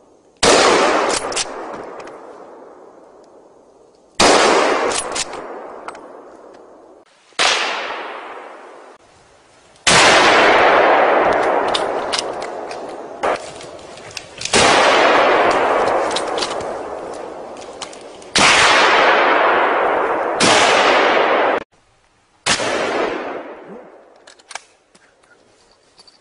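Series of about eight hunting gunshots a few seconds apart, each followed by a long echo through the forest that dies away over two to four seconds; several are cut off abruptly before the echo ends.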